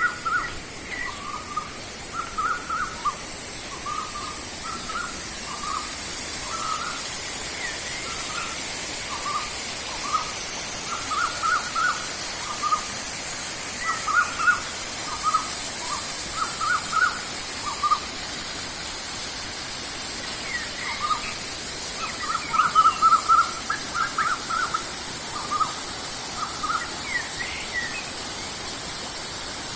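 Birds calling with short notes repeated in quick clusters, over a steady high hiss.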